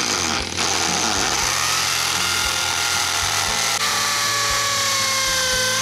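Hammer drill boring into cinder block with a masonry bit, running steadily and loudly. Its whine sinks slowly in pitch as the bit works into the block, with a brief dip about half a second in.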